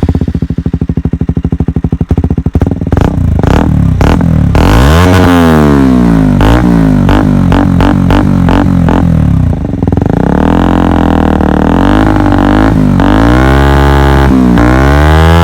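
KTM Duke 125's single-cylinder four-stroke engine through a Radical Racing GP Carbon full exhaust system, running loud with a fast, even pulse at idle. From about four seconds in it is revved repeatedly, the pitch rising and falling with each blip.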